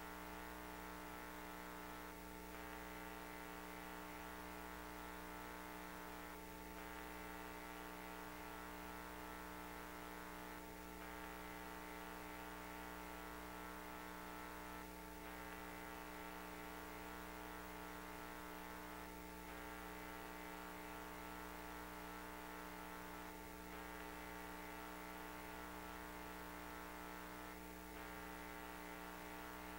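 Steady electrical hum, with a faint soft pulse about every four seconds.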